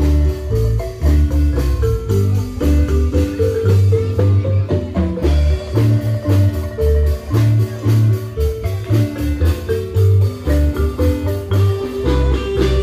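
Marimba band playing a lively tune: mallets strike quick runs of notes on the wooden bars over a steady beat of deep bass notes.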